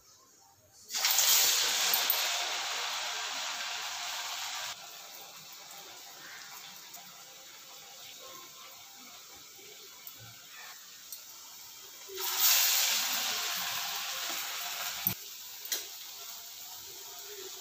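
Ash gourd and urad dal vadas dropped into hot oil in a kadai. A sudden loud sizzle about a second in slowly settles to a steady, quieter frying sizzle. About twelve seconds in, a second vada goes in with another loud sizzle lasting around three seconds.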